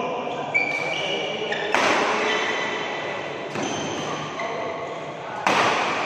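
Badminton rally: rackets striking the shuttlecock four times, sharp cracks about every one to two seconds that echo in a large hall. Between the hits, shoes squeak on the court mat.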